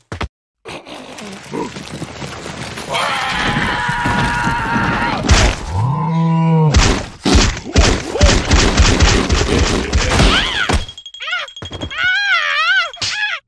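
Edited cartoon sound effects and character cries: a held, strained cry, a tone that sweeps up and falls back, a fast run of thuds and knocks, then warbling tones that rise and fall.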